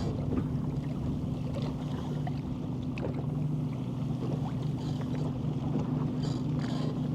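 Steady hum of a small electric motor on a bass fishing boat, with a few light clicks over it.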